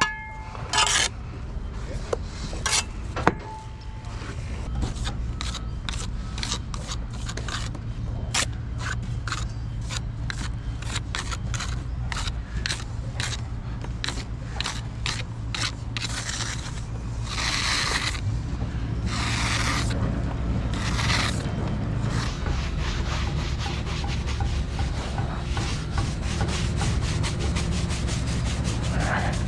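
Steel brick jointer scraping along fresh mortar joints in quick, repeated short strokes, with a few sharp trowel knocks on the bricks in the first few seconds.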